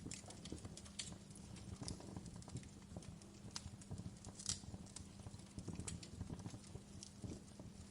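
Fireplace fire crackling: irregular small pops and snaps, one sharper snap about halfway through, over a low rumble and a faint steady hum.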